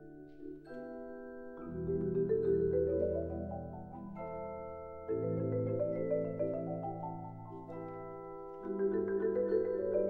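Mallet percussion ensemble of marimbas and vibraphones playing: sustained ringing chords and low held notes, with rising runs of rapid mallet notes sweeping up in three waves, about one every three and a half seconds.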